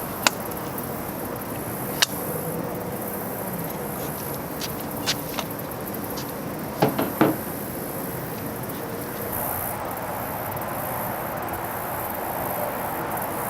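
Steady high-pitched insect buzz with a handful of sharp knocks scattered through it, three close together about seven seconds in.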